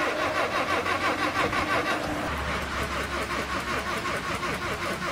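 An old car's engine being cranked by its starter motor, pulsing rhythmically about five times a second. About two seconds in the sound changes and a low steady hum comes in under the cranking.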